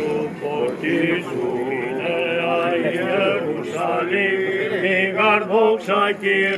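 Male voices chanting a Byzantine Orthodox hymn in long held notes.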